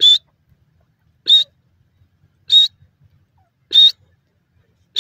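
Grey francolin calling: a series of short, high, whistled notes, each bending slightly upward, about one every one and a quarter seconds.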